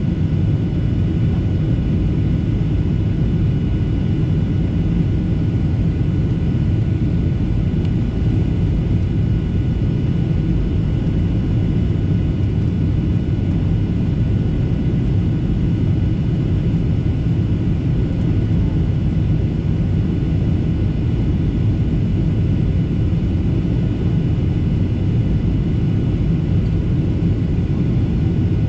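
Steady cabin noise of a Boeing 737-800 descending for landing: a low rumble of airflow and its CFM56-7B turbofan engines heard from inside the cabin, with a few faint, steady high whine tones over it.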